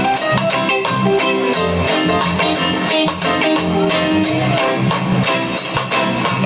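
Live band playing an instrumental intro, guitar over a steady drum beat.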